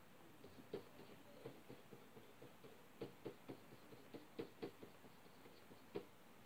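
Faint, irregular light clicks and taps from tidying loose makeup inside an open makeup case, with a run of sharper clicks about three seconds in, another around four and a half seconds, and a single sharp one near the end.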